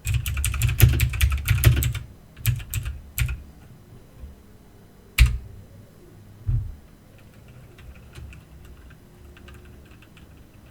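Typing on an Aukey mechanical keyboard: a quick run of key clicks for about two seconds, a few more strokes, then one loud keystroke about five seconds in. A dull thump follows, and after it only faint, scattered clicks.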